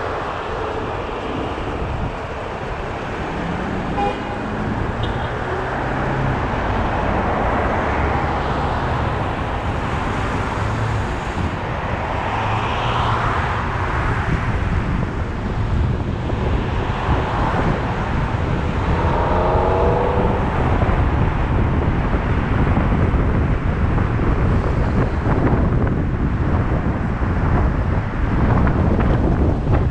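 Car driving through city traffic: steady engine, tyre and road noise. About two-thirds of the way in comes a short rising tone.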